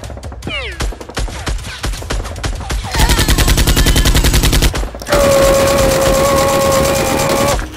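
Automatic gunfire sound effects: scattered shots, then a rapid, evenly spaced burst in the middle. Near the end comes a long, steady held cry.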